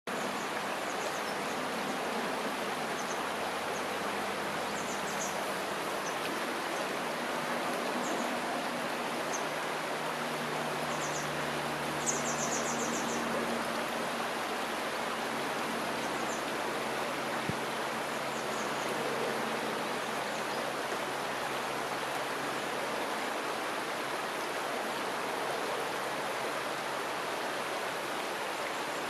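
River water flowing in a steady rushing wash, with a few faint high chirps now and then.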